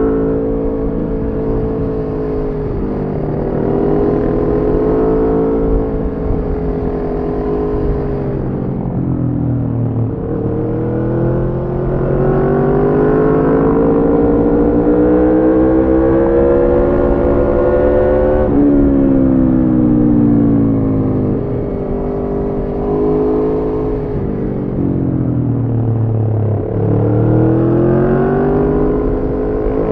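Aprilia Tuono V4's V4 engine through an Arrow slip-on exhaust with the catalytic converter removed, heard on the move. It pulls up through the revs and eases off several times, each time picking up again, with a sharp drop in pitch a little past the middle as it shifts up a gear.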